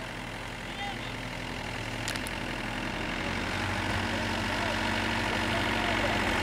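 Vehicle engines running at low revs, a steady hum that grows gradually louder as a small truck comes up behind an idling pickup.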